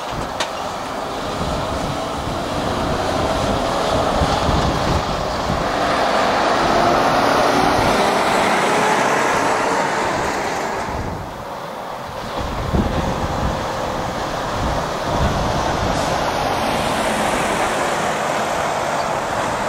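Diesel engines of articulated lorries driving past at low speed. A Mercedes-Benz curtainsider tractor unit passes and pulls away. After a short lull about eleven seconds in, an Iveco curtainsider comes up with more trucks behind it.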